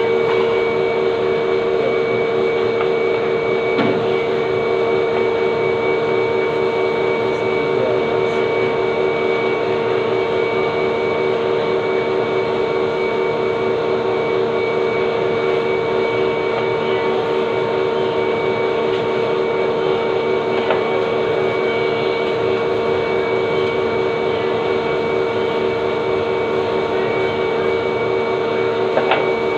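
Steady machine drone with a constant pitched hum, unchanging throughout, with a few faint knocks.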